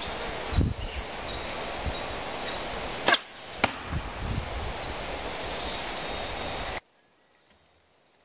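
An archery bow shot: a sharp snap of the bowstring releasing about three seconds in, then a second, slightly fainter crack about half a second later, over a steady rush of wind on the microphone. Near the end the sound drops abruptly to near silence.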